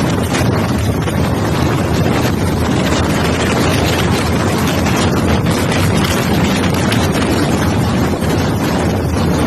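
Strong storm wind buffeting the microphone: a loud, steady rushing noise with no letup.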